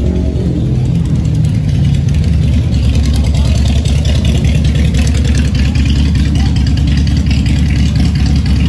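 Motorcycle engine running at low speed, a steady low rumble heard close up from on the bike as it rolls slowly, with other motorcycles running nearby.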